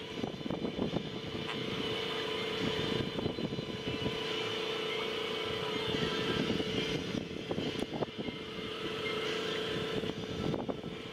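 Steady mechanical hum of constant pitch from the sailboat's machinery while the boat is under way, with wind and water noise over it.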